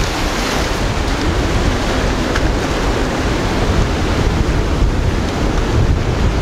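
Ocean surf breaking and washing over a rocky ledge in a steady rush, with wind buffeting the microphone.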